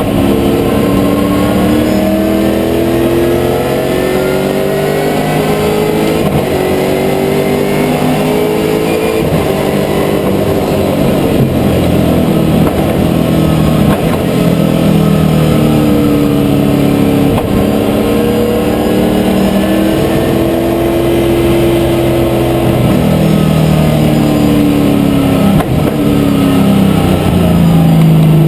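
Holden Commodore VZ V8 Supercar's V8 engine at racing speed, heard from inside the cockpit: loud, with the revs climbing and then dropping sharply again and again through the gear changes.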